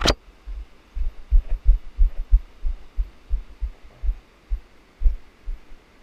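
A sharp click at the start, then dull low thumps at a walking pace, about two to three a second: footfalls jolting a body-worn action camera as the wearer walks.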